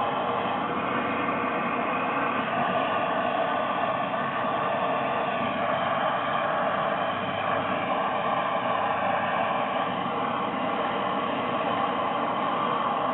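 Oxy-acetylene torch flame running with a steady hiss while heating seized wheel studs.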